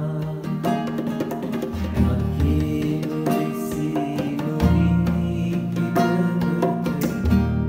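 Acoustic guitar strummed and plucked, playing a slow run of chords with changing bass notes.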